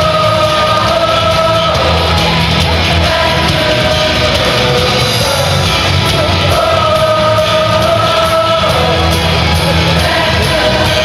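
Music with a singing voice holding long, drawn-out notes over a steady low accompaniment.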